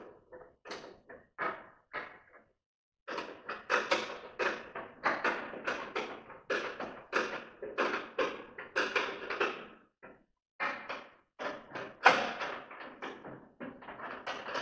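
Irregular knocks and clanks of sheet steel as the dust collector's steel drums are fitted onto its frame, about two or three a second, with one louder bang near the end.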